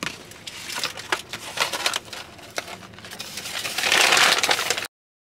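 Rustling and crinkling of a bag being handled, with scattered small clicks and knocks. A louder, longer rustle comes near the end, then the sound cuts off suddenly.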